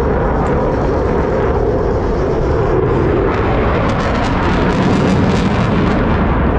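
Fixed-wing aircraft flying over a crowd, a loud, steady engine roar, with a run of sharp crackles from about four to five and a half seconds in.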